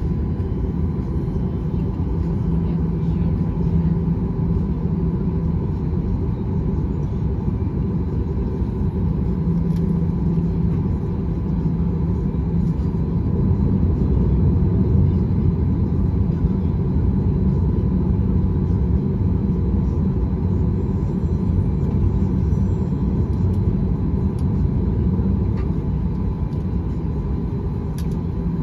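Inside the cabin of a Boeing 737-900ER taxiing: a steady low rumble from its CFM56 engines at idle and the airframe rolling, with a low hum that comes and goes and a faint steady whine.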